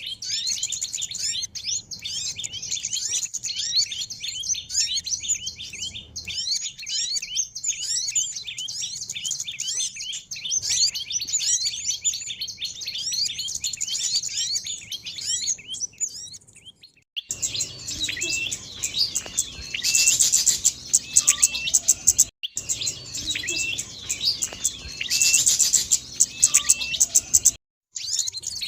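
Recorded calls of small songbirds played as a bird lure: a dense, continuous chatter of high chirps for about the first sixteen seconds, then, after a short break, a different twittering with a loud, high rattling phrase that comes twice.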